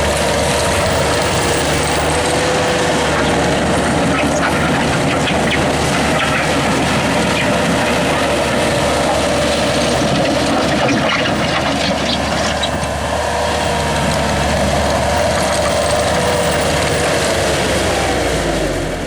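Bobcat T200 tracked skid steer's diesel engine running steadily, with a steady whine over the engine that drops in pitch near the end.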